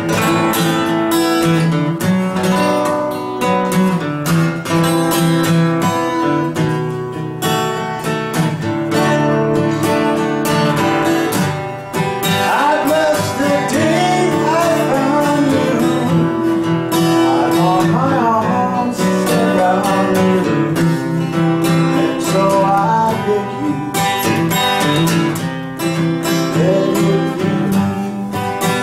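A man singing while strumming a steel-string acoustic guitar, live.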